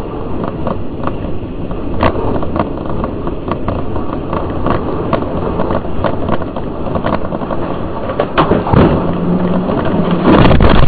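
Car interior road noise from a dashcam recording on a highway: a steady rumble of tyres and wind with many scattered clicks and knocks. It swells into a louder, rougher rush in the last second or two, as debris from the crashing airliner sprays across the road.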